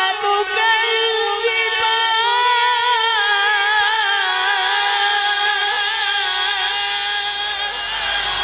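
A male Quran reciter's voice drawing out one long, high melismatic note in tajweed style, its pitch wavering and ornamented.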